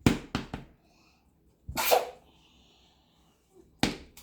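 Sharp plastic clicks and knocks from a plastic LOL Surprise ball being handled and pried open: three quick clicks at the start, a short noisy burst about two seconds in, and one more knock near the end.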